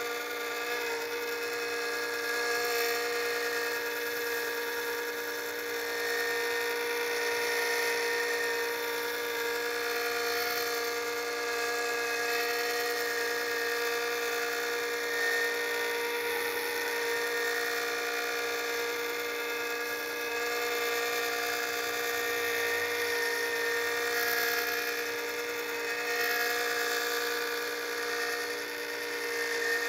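Electric disc sharpener running with a steady whine, a half-inch lathe gouge held freehand against the underside of its slotted abrasive disc, adding a hiss of grinding steel.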